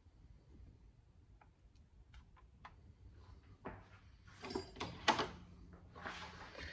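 Faint, sharp ticks of a small metal pick tapping against the inside of a clear plastic filter housing holding desiccant beads, as a stray bead is fished out. These are followed by a few louder handling knocks and rustles, in the middle and again near the end.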